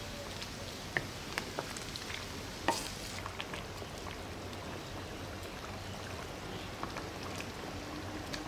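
A big steel wok of chicken curry simmering over a wood fire: a steady bubbling hiss, with scattered sharp clicks and knocks as the curry is stirred and ladled out.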